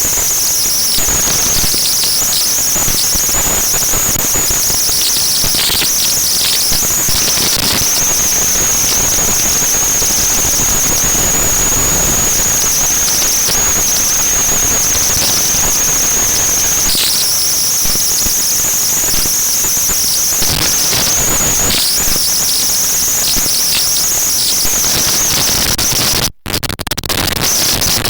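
Strong wind buffeting the microphone: a loud, rough, irregular roar with a steady high whine over it, cutting out briefly near the end.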